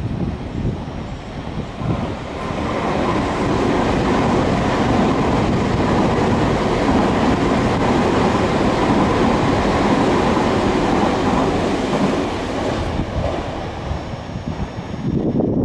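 Nankai Main Line electric train passing through the station: the rumble of its wheels on the rails builds over the first couple of seconds, stays loud through the middle with a faint steady whine, and fades away near the end.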